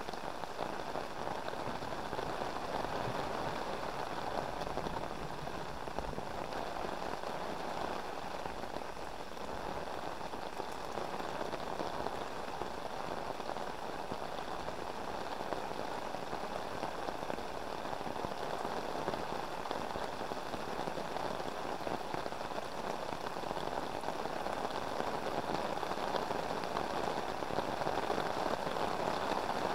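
Heavy rain falling steadily on a fishing umbrella overhead and on the surface of a river, getting a little louder near the end.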